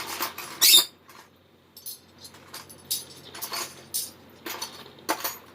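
Small metal hand tools (wrenches) clinking and clattering as they are handled and set down: a string of sharp clinks, the loudest just under a second in.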